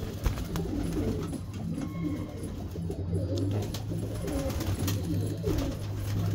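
Domestic pigeons cooing in a loft, low repeated coos throughout, over a low steady hum.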